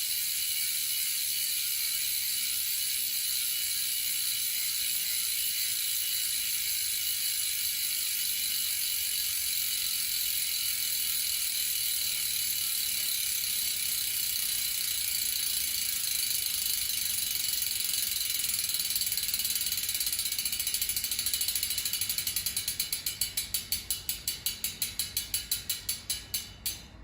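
Bicycle rear hub freewheeling, its freehub ratchet giving a fast, high-pitched buzz of clicks. In the last few seconds the clicks slow into separate ticks and stop as the wheel spins down.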